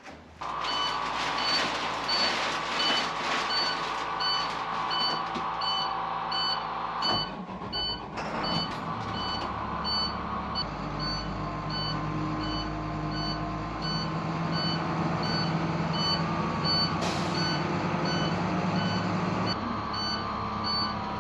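Vehicle's reversing alarm beeping at a steady, even rhythm over an engine running.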